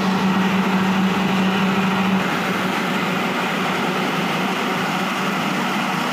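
Mini rice mill running: a loud, steady mechanical whir of the paddy husking and polishing machinery, with a low steady hum that drops out about two seconds in.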